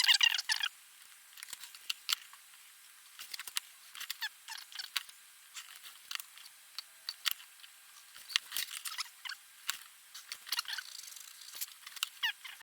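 Drawing by hand on paper: the drawing tip scratches across the page in short, irregular strokes, a quick run of them at the start and then scattered lines and marks.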